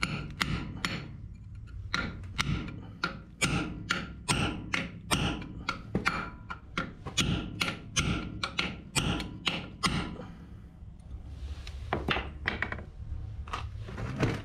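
Hammer striking a punch against a domed steel Welsh (freeze) plug in a Ford N-series tractor engine block. The plug is being knocked inward into the water jacket so it can be pulled out. The blows come in a steady run of about two or three a second, pause about ten seconds in, then a few more follow near the end.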